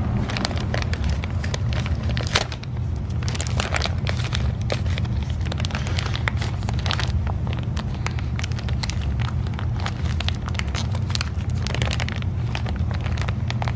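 Plastic packaging crinkling and crackling irregularly as it is worked open by hand, over a steady low hum.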